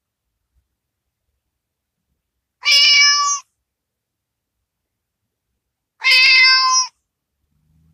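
A cat meowing twice, about three seconds apart: two near-identical steady meows, each under a second long.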